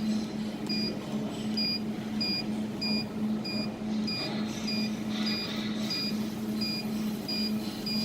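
Jewelry laser welding machine giving short electronic beeps about every two-thirds of a second over its steady low hum.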